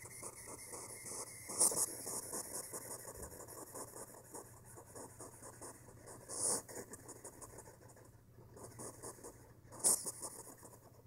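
African pygmy hedgehog chewing mealworms up close: a fast run of small wet crunching and smacking clicks, with three louder bursts about two seconds in, midway and near the end.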